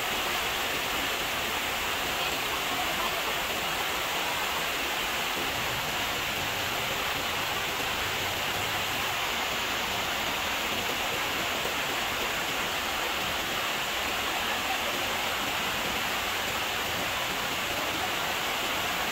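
Steady, unbroken rushing noise, even in level throughout.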